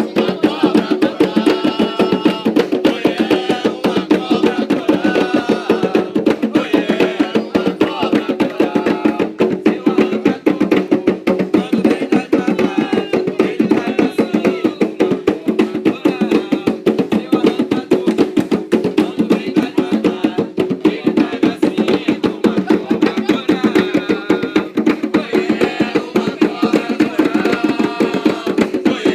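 Atabaque hand drums beaten in a fast, steady rhythm for an Umbanda ponto, with voices singing over them at times.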